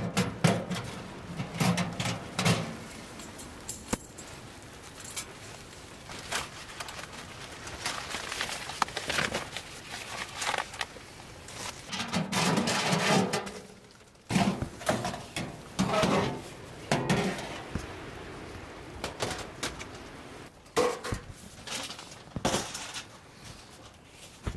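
Sheet-metal panels of a homemade take-down wood stove clanking and scraping as they are handled and pulled apart. There are many short metal knocks, and a few longer sliding scrapes midway.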